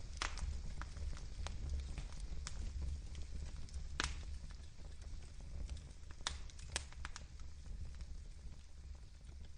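Wood fire crackling, with irregular sharp pops, the loudest about four seconds in and two close together near the seven-second mark, over a steady low rumble.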